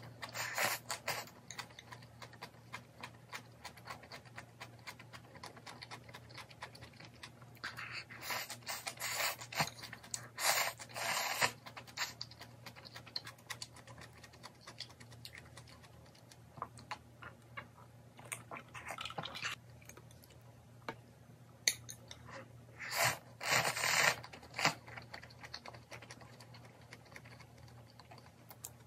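A person eating bean-sprout ramyeon: several loud slurps of noodles, at the start, twice between about 8 and 12 seconds in, and again about 23 seconds in, with soft chewing and small clicks in between.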